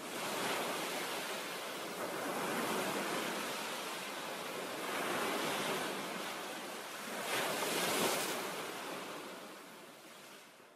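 Ocean surf: waves surging and washing in, a swell every two to three seconds, then fading out near the end.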